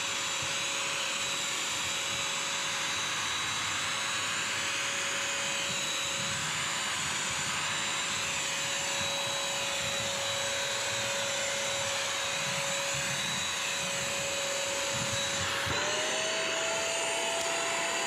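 BISSELL CrossWave wet/dry vacuum-mop running steadily, with a motor whine over the rush of suction and the brush roll, as it picks up sticky paw prints and pet hair from a hard floor. About three-quarters of the way through, the whine rises a little in pitch and holds there.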